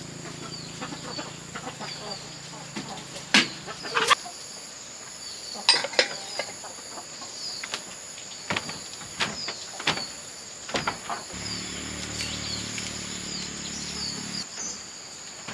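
Rural ambience: a steady high insect drone with a pulsing trill and repeated short bird chirps, broken by several sharp knocks and clatters from objects being handled.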